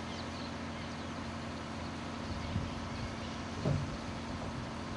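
Pause in a speech heard through an outdoor microphone: steady background noise with a low electrical hum, and a brief faint sound like a voice about three and a half seconds in.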